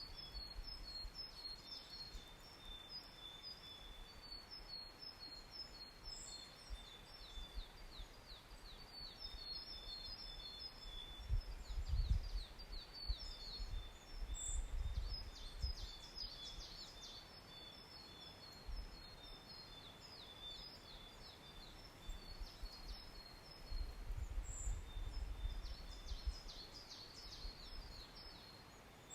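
Several wild songbirds singing in a mountain forest: short high phrases and rapid trills repeated again and again, with occasional sharp higher notes, over a steady background hiss. Low rumbles come and go, a few times.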